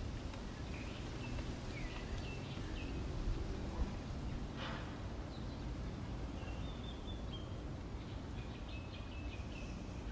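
Birds chirping in short, repeated calls over a steady low background rumble.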